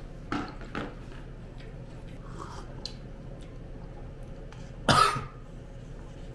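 A man coughs once, sharply, about five seconds in, after two short throat-clearing sounds near the start.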